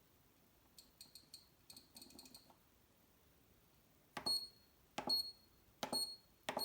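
Homemade ESP8266 kitchen timer beeping: a few faint clicks with short high beeps, then four louder high-pitched beeps, each with a knock, a little under a second apart.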